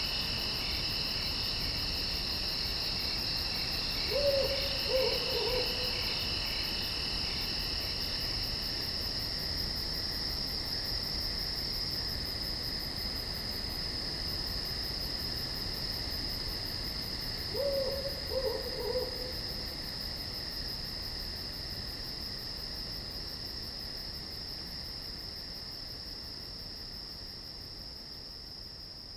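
Steady chorus of night insects calling over the woods, with an owl hooting twice, each call a short run of three or four hoots a little over a second long. The whole chorus gradually fades down toward the end.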